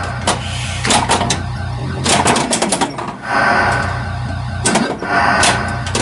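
1982 Bally Vector pinball machine in play: repeated sharp clacks and knocks from the ball and coils over a steady low hum, with a noisier stretch just past the middle.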